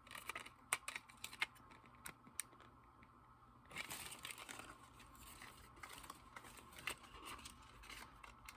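Small sharp clicks and taps, then from about four seconds in a stretch of crinkling and rustling, as a single eyeshadow is opened from its packaging.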